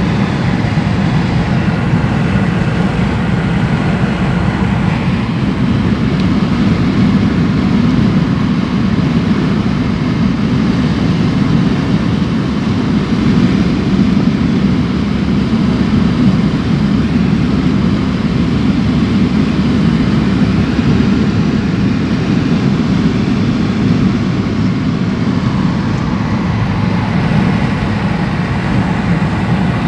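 Car driving at road speed, heard from inside the cabin: a steady rumble of engine and tyres on the road.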